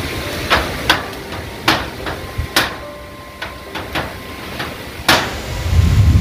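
Hammer driving nails into corrugated zinc roofing sheets: five sharp, irregularly spaced blows, with a low rumble building near the end.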